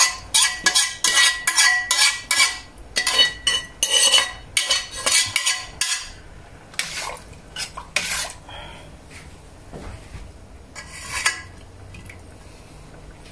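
Metal spoon stirring and clinking against the sides of a stainless steel cooking pot of soup: quick clinks for about the first six seconds, then a few scattered knocks.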